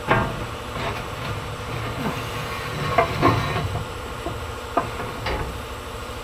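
Heavy steel truck-frame parts being handled and fitted: irregular metal clanks and knocks, about half a dozen, over a steady low hum.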